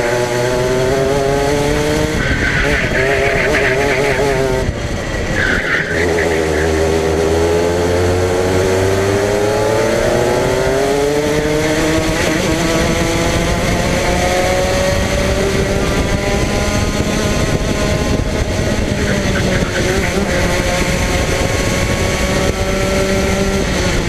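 Go-kart engine heard from an onboard camera mounted on the kart, revving through corners. Its pitch drops as the throttle is lifted about five seconds in, climbs steadily as the kart accelerates out, then eases and rises again near the end.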